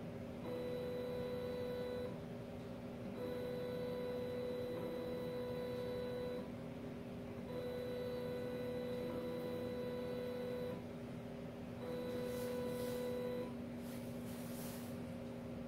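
Electric motor turning a ball-chain kinetic sculpture, giving a steady-pitched whine that starts and stops four times in stretches of about one to three seconds, over a continuous electrical hum.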